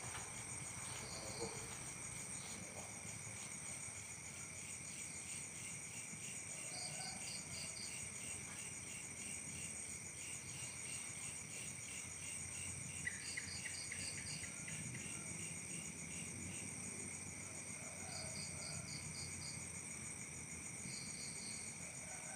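A chorus of crickets and other insects chirping steadily, with several overlapping high trills. Short bursts of rapid chirps repeat every few seconds, and a brief run of sharp chirps comes about 13 seconds in.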